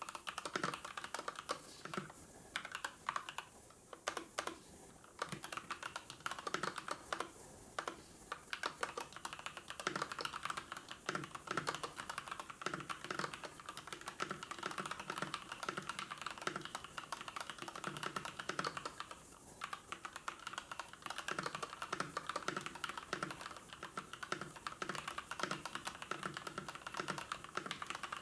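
Typing on a computer keyboard: a fast, irregular run of keystroke clicks, with a couple of brief pauses.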